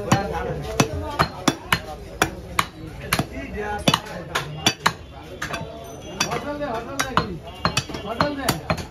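Heavy butcher's cleaver chopping into a bone-in cut of beef on a wooden log chopping block: a run of about twenty sharp blows, irregular at roughly two a second. Voices talk in the background.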